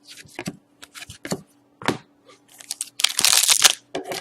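A trading card pack and its wrapper being handled: a series of clicks and short rustles, then a loud crinkling of the wrapper for under a second, about three seconds in.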